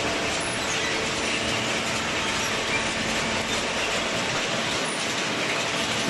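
Inclined chain conveyor of a cardboard baler running, loaded with loose cardboard: a steady, dense mechanical clatter of many rapid small ticks, with a faint steady hum underneath.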